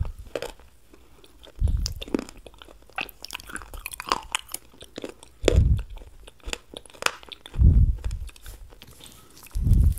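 Close-miked crunching and chewing of chaat papdi, the crisp fried wafers crackling sharply, with a dull low thump every two seconds or so.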